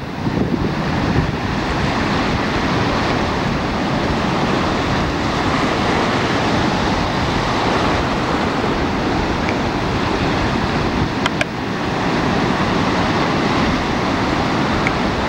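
Ocean surf breaking and washing in, a steady rushing noise, with wind buffeting the camcorder microphone.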